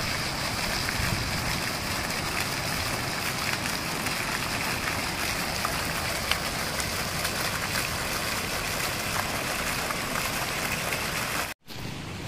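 Fountain jets and a stepped cascade splashing into a water basin: a steady rushing splash with small scattered drips. It breaks off abruptly near the end.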